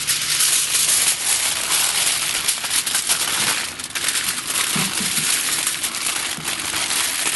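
Aluminum foil crinkling as sheets of it are folded and pressed by hand into a tight wrap, a steady run of small crackles throughout.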